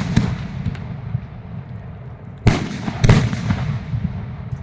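Fireworks going off: a loud bang about two and a half seconds in and another about half a second later, with smaller pops and crackles around them.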